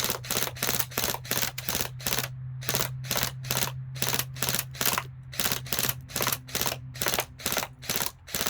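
ASG Scorpion Evo airsoft electric gun firing 6 mm BBs on semi-auto in quick, uneven succession, about three sharp shots a second. A low steady hum runs underneath.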